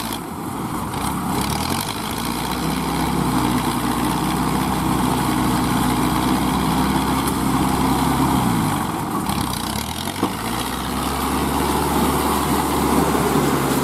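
Kubota ZL3001 tractor's diesel engine running under load while driving a straw baler. Its pitch climbs over the first couple of seconds, holds steady, sags about nine seconds in and picks up again.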